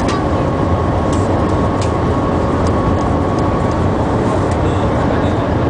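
Steady cabin noise inside the Shanghai maglev train running at about 335 to 350 km/h and still accelerating: a constant rush of noise, heaviest at the low end, with a faint steady whine over it.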